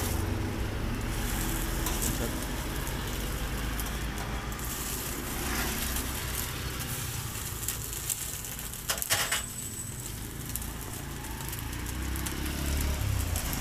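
Beef slices sizzling on an oiled flat griddle, with a metal turner scraping and clicking against the plate; a short cluster of sharp clicks comes about nine seconds in.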